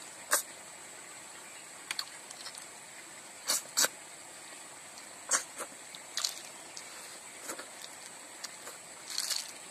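Cooked snails being sucked out of their shells by mouth: about ten short, sharp wet slurps at irregular intervals, two in quick succession a little before the middle and a quick cluster near the end.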